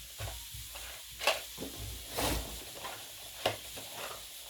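Rummaging among small objects on a workbench while searching for parts: a few short, scattered clicks and rustles over a low hum.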